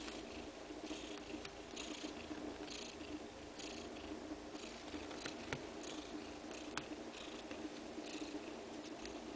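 Neva Masquerade (colourpoint Siberian) mother cat purring steadily while nursing her newborn kittens, with short soft rustling noises and a few faint clicks over the purr.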